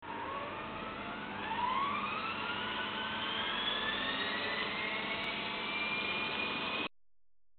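Small electric RC helicopter spooling up on the ground: a motor-and-rotor whine that rises steadily in pitch over the first few seconds, then holds high, and stops abruptly near the end.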